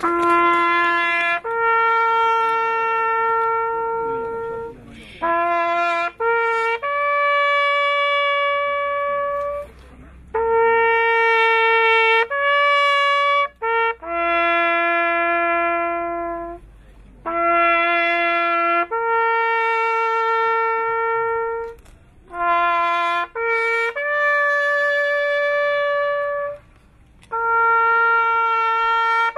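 Solo trumpet playing a slow ceremonial salute call. Short notes lead into long held ones on just a few pitches, phrase by phrase, with brief pauses between.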